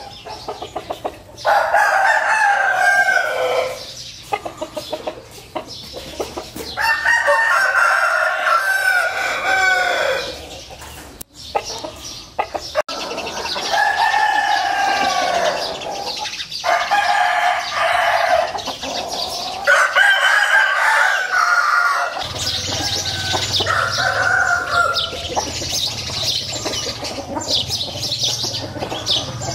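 Gamecock roosters crowing again and again: about five long crows a few seconds apart, with rooster clucking in between.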